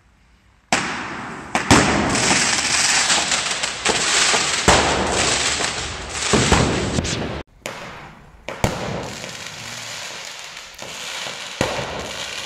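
Fireworks going off inside a tunnel: a loud, dense crackling hiss with sharp cracks that starts abruptly about a second in, breaks off twice in the middle, and carries on with scattered pops.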